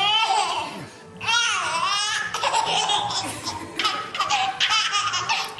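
A toddler laughing: two long laughs in the first two seconds, then quicker repeated giggles. Background music plays underneath.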